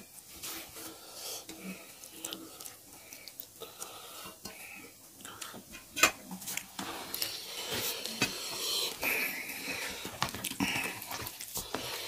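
Steel plates clinking and knocking as potato-and-gundruk curry is served onto rice, with one sharp clank about six seconds in. Then fingers mix the rice and curry, a dense wet mixing sound.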